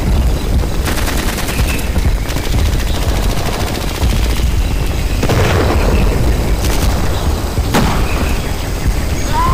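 Battle sounds: dense, continuous gunfire over a heavy low rumble, with a few sharper booms standing out about a second in, around the middle and near the end.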